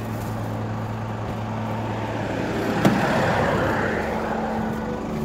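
Van door latch clicking open about three seconds in, followed by a rustling noise. A steady low hum runs underneath and stops just before the click.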